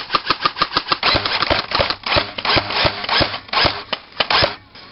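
Airsoft BBs striking a metal barricade in rapid succession: sharp pings about seven a second, becoming a denser, irregular clatter after about a second and stopping shortly before the end.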